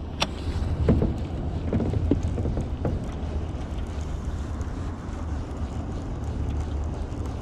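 Steady low rumble of wind buffeting the microphone over open water, with a few light clicks from a baitcasting reel being worked in the first three seconds.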